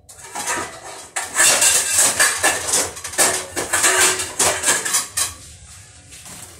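Clattering and splashing as baby bok choy (baby sawi) is washed in a plastic bowl at a sink. It is loudest and busiest from about a second in until near the end, then dies down.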